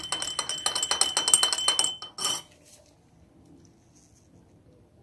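Metal teaspoon stirring warm milk in a glass mug, clinking rapidly against the glass with a high ringing note. The stirring stops about two seconds in after one last clink.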